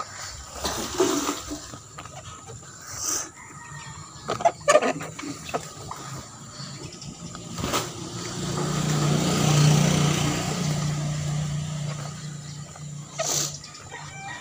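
Scattered knocks and rubbing close to the microphone. About eight seconds in, a motor vehicle's engine passes by, swelling to a peak and fading away over about five seconds.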